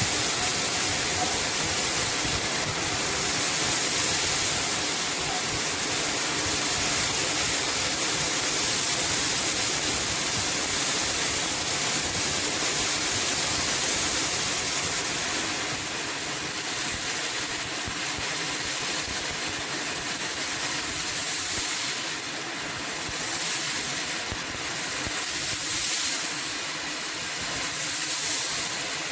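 Shark vacuum cleaner running on a hard floor, a steady loud rushing hiss that dips and swells a few times in the second half.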